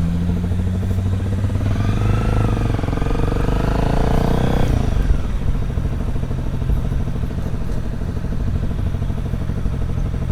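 Motorcycle engine running while riding, with rising pitch from about two seconds in and an abrupt drop near five seconds, then a steady run.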